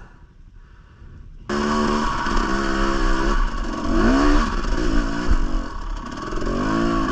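Dirt bike engine coming in suddenly about a second and a half in, then being revved, its pitch rising and falling several times as the throttle is worked on a rocky climb.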